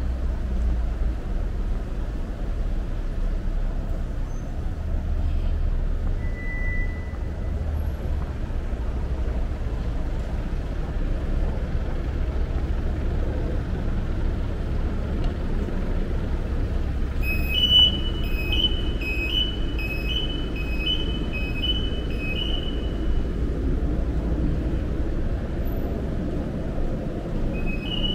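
Steady city street traffic: a low rumble of passing cars and trucks. Partway through, a high electronic two-tone beep repeats about every half second for several seconds, and it starts again near the end.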